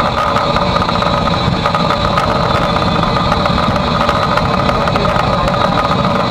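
Steady loud footplate noise in the cab of A1 Pacific steam locomotive 60163 Tornado: a dense, unbroken mechanical din with a few steady tones running through it.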